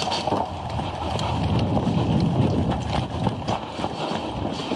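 Wind rumbling on the camera microphone, swelling in the middle, with scattered short clicks and knocks over it.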